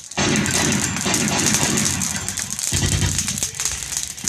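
Staged battle-scene effects: dense, rapid crackling like automatic gunfire. A low steady drone joins about two-thirds of the way through.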